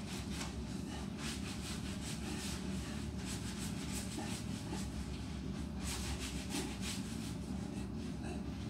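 Hands scrubbing the wet fur of an Alaskan Malamute, a run of uneven rubbing strokes over a steady low hum.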